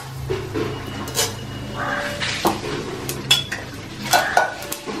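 Mustard and fenugreek seeds crackling in hot groundnut oil in a metal pot: scattered sharp pops and clicks over a steady low hum.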